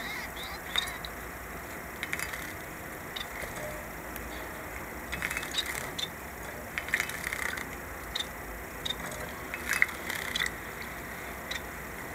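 Small cage birds making scattered short chirps and clicky rustling sounds, a few every second or two.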